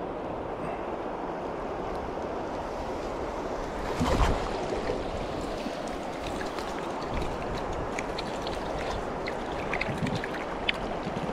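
Steady rush of a shallow river running over stones around a wader, with a sudden splashing thump about four seconds in and small sharp splashes of water in the second half.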